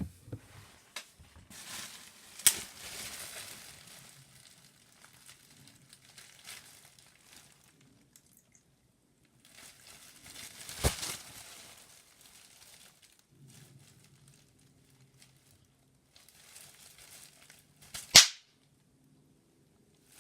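A person hiccuping three times, about eight seconds apart, each a sharp click-like 'hic' with a short rush of breath around it. The last one is the loudest.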